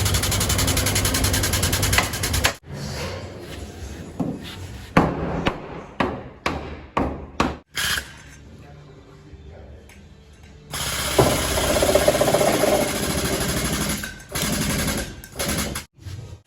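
A power tool running in two loud bursts, with a run of sharp knocks, like hammer or tool blows on metal, in the quieter stretch between them and near the end.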